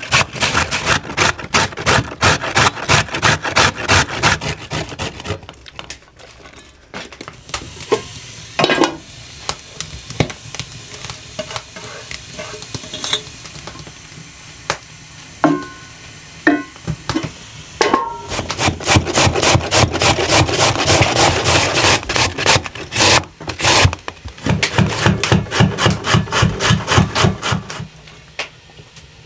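Food being grated by hand on a grater: rapid, even rasping strokes, about four or five a second. They stop for several seconds midway, leaving a few scattered clicks and knocks, then resume.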